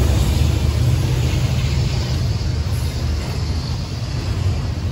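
Norfolk Southern double-stack freight train rolling past: a steady low rumble that eases off slightly as the trailing diesel locomotive goes by and the container well cars follow on the rails.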